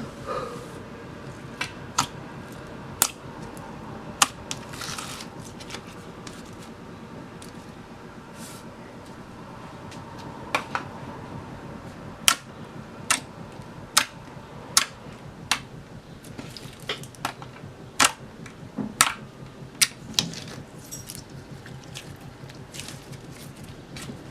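Glossy, clicky slime being poked and pressed by hand, giving sharp irregular clicks and pops, sparse at first and coming about once or twice a second from about ten seconds in.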